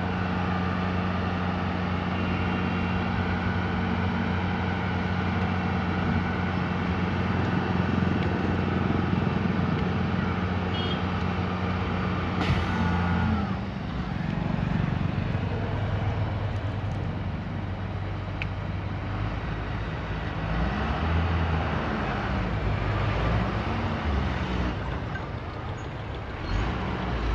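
Tata 2518 tipper truck's diesel engine running steadily at raised revs while the body is tipped up to unload. About twelve seconds in, a short hiss sounds and the engine note drops, then later the revs rise and fall a couple of times as the truck creeps forward.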